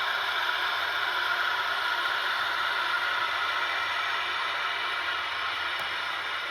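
Model freight train cars rolling past on the layout track: a steady rushing clatter of small metal wheels on rails, easing a little near the end.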